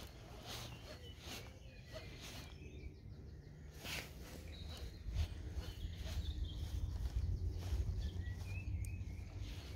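A baitcasting reel and rod being worked during a jerkbait retrieve: irregular soft clicks and handling knocks about every second. Faint bird chirps sit behind it, and a low rumble on the microphone grows from about halfway through.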